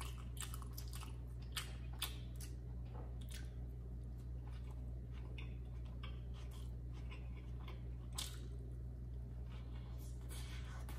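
A man chewing a mouthful of beef burger: small irregular mouth clicks, over a steady low hum. Near the end he takes another bite.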